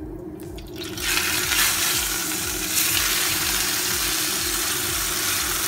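Sirloin steak laid into hot olive oil in a nonstick frying pan: the oil breaks into a loud sizzle about a second in and keeps sizzling steadily.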